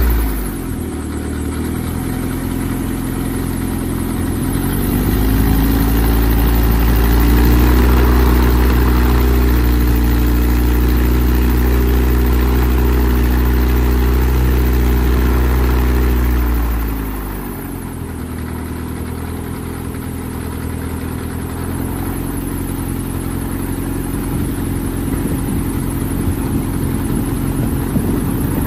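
Viking 175 aircraft engine running with its propeller turning, just after start-up. It idles, is throttled up about four seconds in and held steady, then is pulled back to idle about seventeen seconds in.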